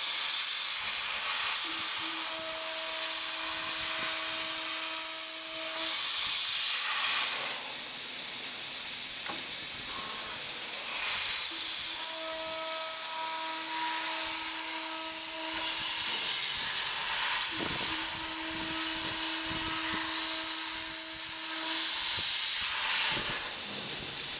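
Three-axis, two-head CNC machine at work, with a steady loud hiss. Over it a steady spindle hum comes and goes in stretches of a few seconds.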